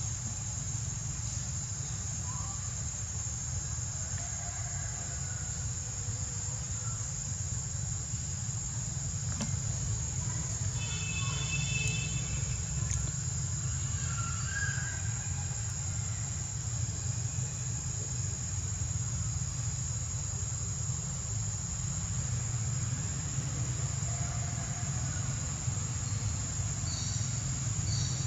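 Insects' steady high-pitched drone over a low, even rumble, with a few faint chirps around the middle and a quick run of high chirps near the end.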